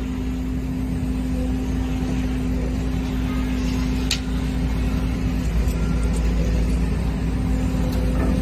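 Steady engine-and-hydraulic drone from the machinery powering a multi-module hydraulic pile breaker, with a constant low hum. A sharp click about four seconds in and another at the very end.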